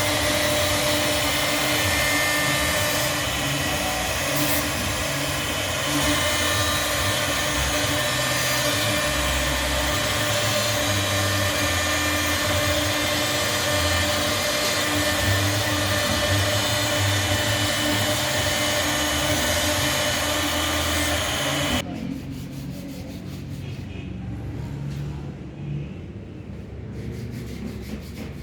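CNC router spindle running steadily as it carves wood, a loud steady whirr with a few held tones. It cuts off abruptly about three-quarters of the way through, leaving a quieter, lower sound.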